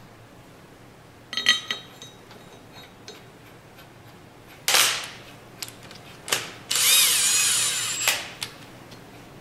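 A ringing metal clink about a second and a half in, then a power driver running in the pump's valve-plate retaining bolts: a few short bursts, then a run of about a second and a half with a wavering whine.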